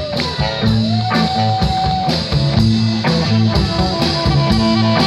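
Live blues-rock band playing an instrumental passage between sung verses: electric guitars, bass and drum kit with a steady beat and regular cymbal strokes. A long held lead note bends in pitch over the first two seconds.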